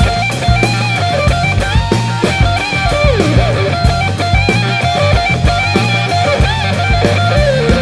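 Rock music with a lead electric guitar melody over bass and drum kit.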